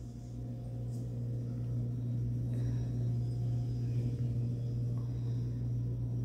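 Steady low hum that holds the same pitch throughout, a little louder after the first couple of seconds.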